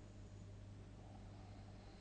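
Near silence in a pause between a sleeper's snores: only a faint steady low hum and hiss of room tone.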